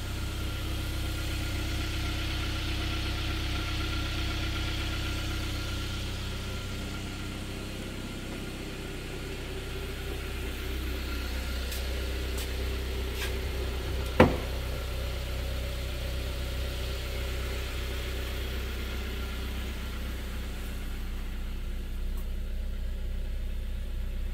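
2012 Kia Soul's 1.6-litre four-cylinder engine idling steadily in park. A single sharp click sounds about halfway through.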